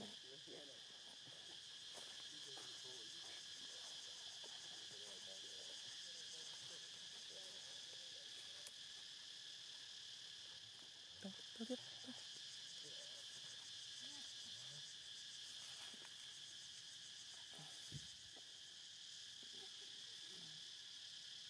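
A steady, high insect chorus of crickets or cicadas, with a couple of faint short sounds about halfway through.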